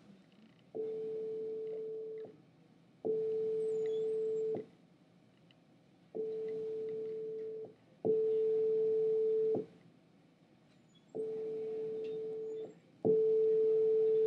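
Three pairs of steady test tones, all at one mid pitch and each about a second and a half long: in each pair a reference tone is followed by the same tone played louder, 5, 8 and then 10 decibels higher. It is a loudness-comparison demonstration at a fixed frequency.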